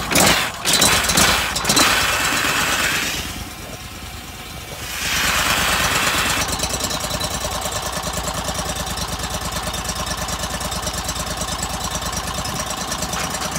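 Pressure washer's gas engine running just after starting, driving the pump dry: water left in the pump and line is forced out of an open fitting, a hard spray that hisses loudly about five seconds in, then eases to a steadier flow over the engine's even running.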